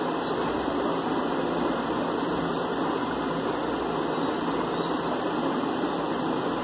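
Steady, even rushing noise, with no distinct events.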